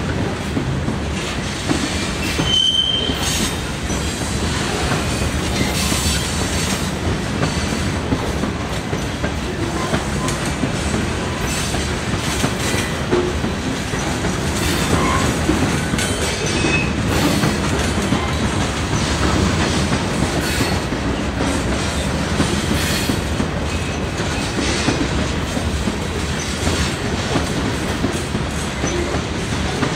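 Potash covered hopper cars of a freight train rolling past steadily, the wheels rumbling and clicking over the rail joints, with a brief high wheel squeal about three seconds in.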